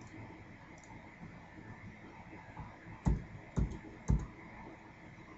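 Three keystrokes on a computer keyboard, about half a second apart, each a heavy thud close to the microphone: typing three periods. A couple of faint clicks come before them.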